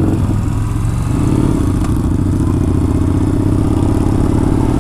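Yamaha Bolt XV950R's air-cooled V-twin running on the road, its engine note dipping just after the start, then running steady.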